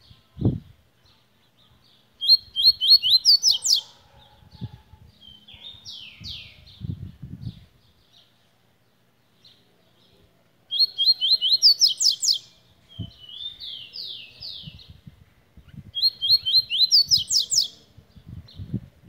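Caged songbird singing: three song phrases, each a quick run of notes climbing in pitch and then a few buzzy falling notes, with soft short chirps in between. A few dull low thumps are also heard.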